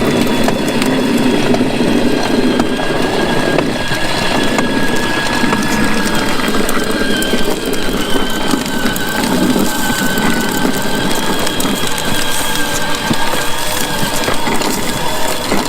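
A 12-volt kids' electric ride-on motorcycle being ridden: a steady motor and gearbox whine over a loud, rough rolling noise from the plastic wheels on the ground.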